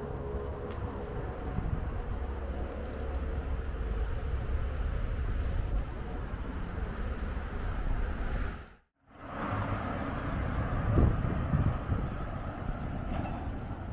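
Road traffic on a city street: passing cars make a steady low rumble. The sound cuts out completely for a moment about nine seconds in.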